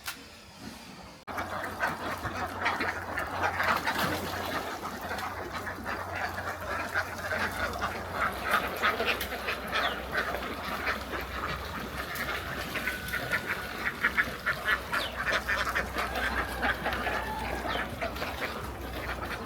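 A flock of domestic waterfowl calling: many short quacks and honks overlapping without a break, starting abruptly about a second in. A faint low steady hum runs underneath.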